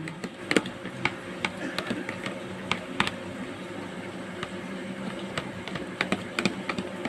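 Metal spoon clicking and scraping against a plastic tub while chopped radish and tomato salad is stirred: irregular light clicks, busiest in the first few seconds and again near the end.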